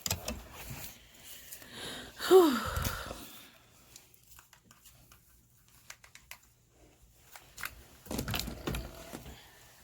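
Rustling and handling noises with scattered clicks, and a short falling tone about two seconds in; a second spell of rustling near the end.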